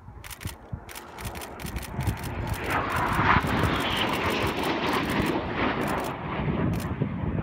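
BAE Hawk T1 jet's Adour turbofan passing low, a rushing roar that swells about two seconds in and stays loud, with a brief high whine near its peak. Rapid bursts of SLR camera shutter clicks sound through it.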